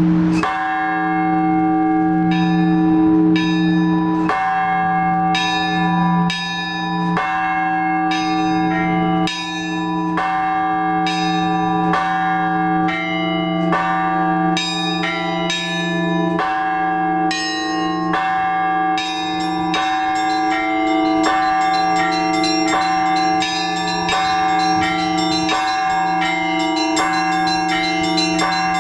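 Orthodox church bells rung by hand in trezvon, several bells sounding together. A large bell's low tone rings on beneath repeated strikes of smaller bells, which come much faster from about two-thirds of the way through.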